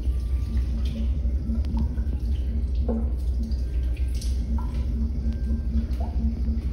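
Steady low machinery hum in a small washroom, with faint drips and small clicks now and then.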